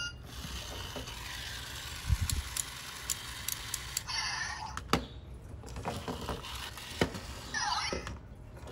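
Zhu Zhu Pets toy hamster switched on by pressing its nose, giving two short bursts of electronic chirps and squeaks, about four seconds in and again near the end, with a few clicks between. The toy's newly replaced speaker is working again.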